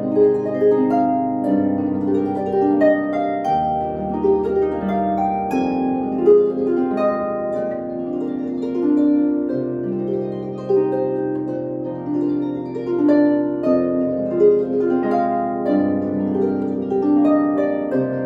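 Solo harp playing a slow, flowing piece: a melody of plucked notes over low bass notes that ring on beneath it and change every few seconds.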